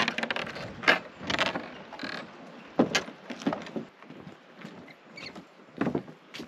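Footsteps on the weathered wooden planks of a narrow suspension footbridge, irregular knocks as the loose boards take each step, with the bridge creaking.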